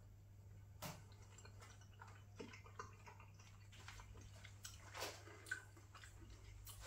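Near silence with a few faint clicks and soft mouth sounds of a person eating from a metal spoon and chewing.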